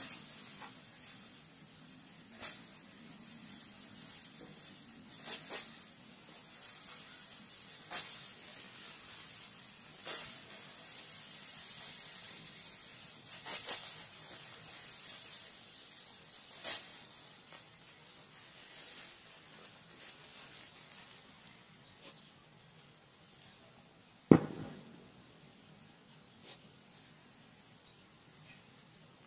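Dry rice stalks being cut by hand with a sickle: a short, crisp swishing rasp every two to three seconds, with the rustle of straw between. Late on there is one sharp, louder thump.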